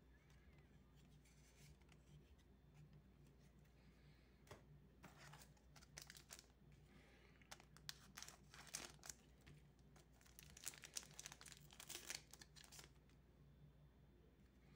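A foil Magic: The Gathering set booster pack crinkling in the hand and being torn open, a run of faint crackles and rustles, most of them between about four and thirteen seconds in.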